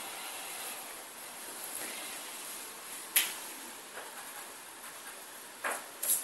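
Pause with a steady hiss and no speech. A single sharp click about three seconds in, and two shorter clicks near the end.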